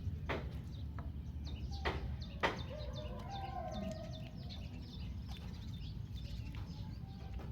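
Birds chirping in many short high calls, with a few sharp clicks near the start and a longer pitched call about three seconds in.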